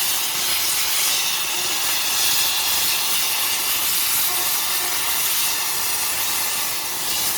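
Plasma cutter's torch hissing steadily as its arc cuts through steel plate about an inch thick.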